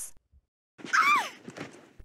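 A woman's short startled yelp about a second in, high-pitched, rising then falling, as she is hoisted up off her feet.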